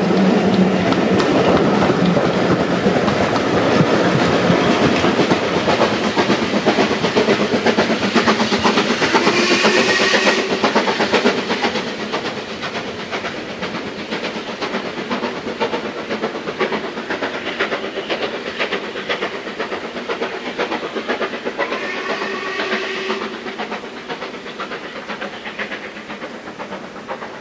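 Coaches of a steam-hauled heritage passenger train running past, wheels clicking steadily over the rail joints, then fading as the train draws away along the line. Two short high-pitched tones sound, about ten seconds in and again near the end.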